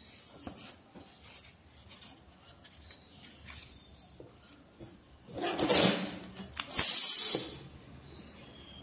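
Craft paper being handled and folded: faint rustles and light taps, then two loud bursts of rustling paper, the first about a second long just past halfway, the second shortly after.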